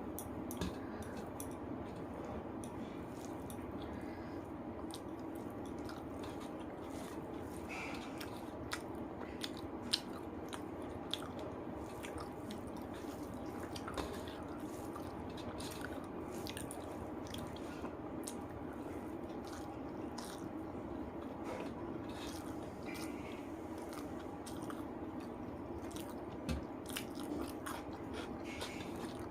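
A person eating rice with chicken curry: chewing, with soft wet mouth sounds and many small scattered clicks and smacks over a steady low hum.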